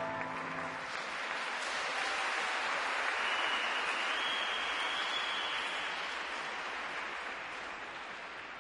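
The last notes of the skating music die away in the first second, then the rink audience applauds. The applause swells, peaks in the middle and slowly fades, with a long high whistle from the crowd midway.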